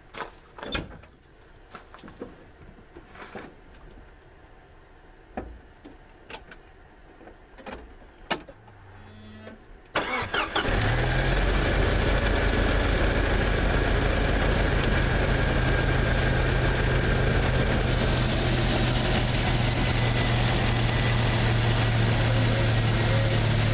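Faint clicks and handling noises, then about ten seconds in a 1995 Jeep Wrangler engine cranks briefly, catches and settles into a steady idle, running real quiet.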